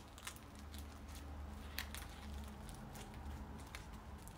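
Faint, scattered crackling and rustling of stiff sego gele fabric being handled and pinned at the back of a headwrap, over a low steady hum.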